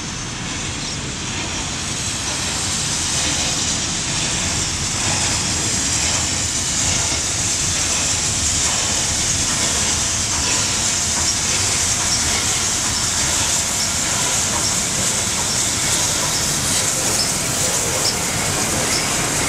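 Steam-hauled train running into the station: steady rumble of wheels on rail under a loud hiss of steam, growing louder over the first few seconds as the locomotive draws near, then holding.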